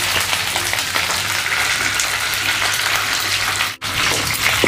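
Masala-coated mackerel frying in hot oil with curry leaves in a frying pan: a steady sizzle with dense crackling. The sound drops out for a moment near the end.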